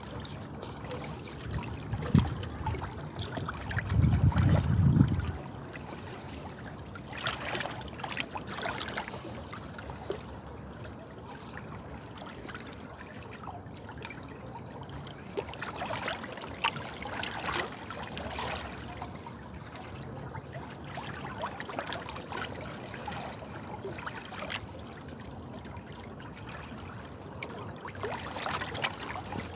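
Running water trickling steadily, with swells now and then. There is a brief low rumble about four seconds in.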